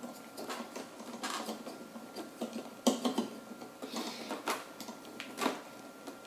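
Screws of a Threadripper CPU socket's retention frame being tightened with the supplied orange-handled screwdriver: irregular sharp clicks and light taps of metal against metal, the loudest about three seconds in and again near the end.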